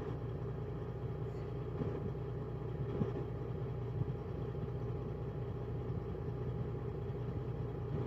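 Straight-piped Freightliner Coronado semi truck's diesel engine idling steadily, heard from inside the cab as a low, even rumble, with a couple of faint clicks about three and four seconds in.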